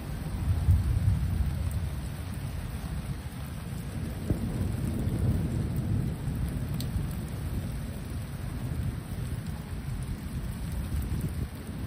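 Rolling thunder rumbling over steady rain, swelling about a second in and again around five to six seconds in.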